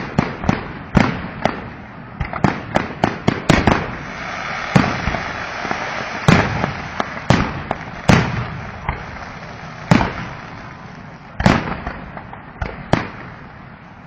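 Fireworks going off: a rapid, irregular string of sharp bangs and pops, some much louder than others, with a spell of hissing crackle about four seconds in.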